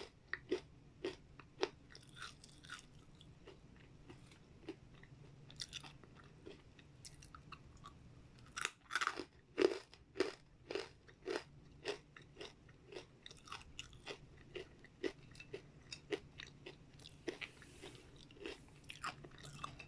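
Close-up crunching and chewing of crispy dried vegetable and fruit chips: a string of sharp, irregular crunches, thickest about nine to eleven seconds in.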